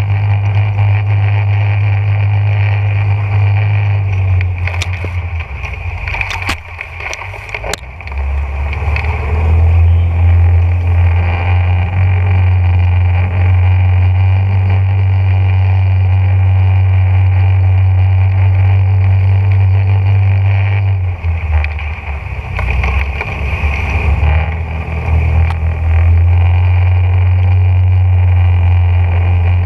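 Boat motor running steadily with a deep hum, easing off twice, around four and again around twenty-one seconds in, then coming back up. A few sharp clicks sound during the first dip.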